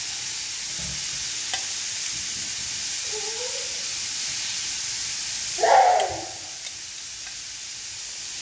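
Chicken pieces and sliced tomato, capsicum and onion sizzling steadily in a hot cast iron grill pan, shifted about with tongs. A short, louder sound breaks in about six seconds in.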